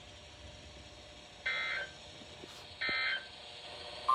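Emergency Alert System SAME digital data bursts on NOAA Weather Radio: two short, buzzy warbling beeps about 1.3 seconds apart over faint radio hiss. Short bursts like these right after a message's sign-off are the end-of-message code.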